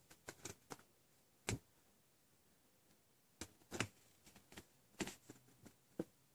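Faint, scattered short rustles and taps of a printed cardboard flavour card being handled, several spaced irregularly, the loudest about a second and a half in.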